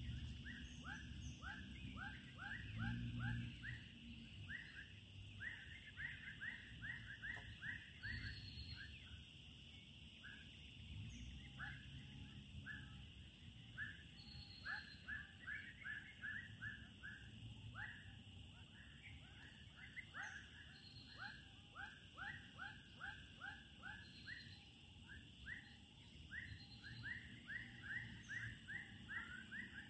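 Evening outdoor ambience with a steady high-pitched insect drone. Over it, some animal gives rapid runs of short, falling chirps again and again, with a low rumble now and then.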